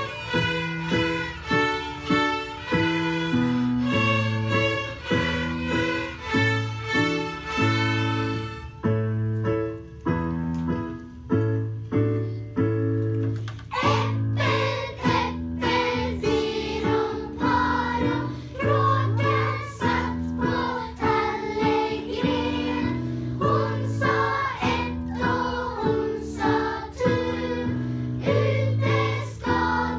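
A children's string orchestra of violins and cellos playing a children's song in a steady rhythm; a few seconds before the middle the notes turn short and sparse, and from about halfway the children sing the tune along with the strings.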